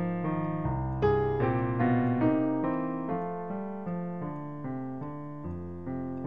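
Solo piano music, calm: single notes and chords struck about twice a second, each ringing and fading.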